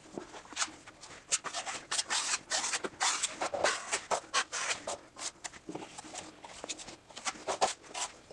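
Steel drywall knife scraping thinned joint compound in a metal mud pan and across the wall, a run of short irregular wet scrapes during a thin skim coat.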